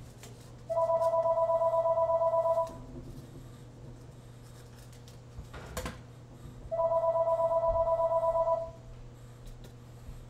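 A telephone ringing twice with an electronic warbling two-tone ring, each ring about two seconds long and the two about four seconds apart. A single sharp click falls between the rings.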